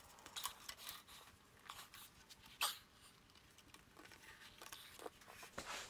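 Faint, scattered clicks and scrapes of hands working a 10-inch subwoofer driver loose from its cabinet, with one louder knock about halfway through and a few more near the end.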